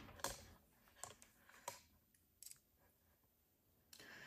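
Four faint, sharp clicks less than a second apart, amid near silence: plastic multimeter test probes being handled and set against the terminals of a 9-volt battery.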